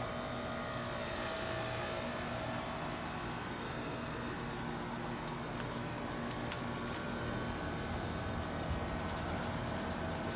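Outdoor heat pump units running: a steady machine hum with a few constant tones over a continuous fan whoosh.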